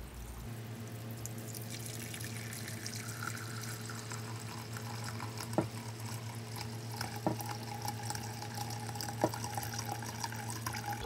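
Whey pouring in a steady stream from a large pot into a cheesecloth-lined colander in a stainless steel sink, splashing as the curds are strained off. Three light knocks come in the second half.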